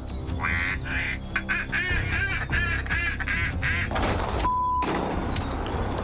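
Duck quacking, a rapid run of quacks at about four a second, over background music. A short steady beep sounds a little after four seconds in.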